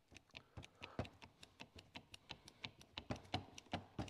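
Rapid, irregular light clicks and taps from a hand hydraulic lug crimper being worked and handled after a crimp on heavy copper battery cable.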